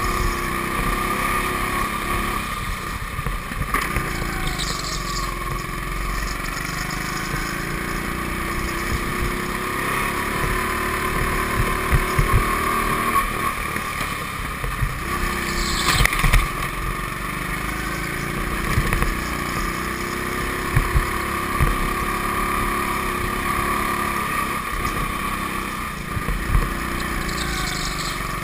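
Go-kart heard from on board, its motor droning steadily, the pitch rising and falling as it speeds up and slows through the turns. A few sharp knocks come through, the loudest about two-thirds of the way in.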